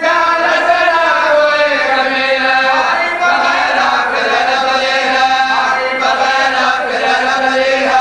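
Marsiya recitation: a man's voice chanting an Urdu elegy in a slow, melismatic melody without instruments. Long held notes slide up and down in pitch, with no break for breath.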